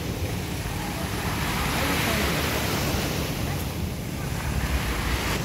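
Small waves breaking and washing up the shore in a steady surging hiss, with wind buffeting the microphone in a low rumble.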